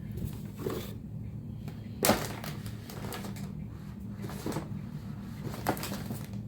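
A graphics card and its packaging being handled: a few knocks and clatters, the loudest about two seconds in, over a steady low hum.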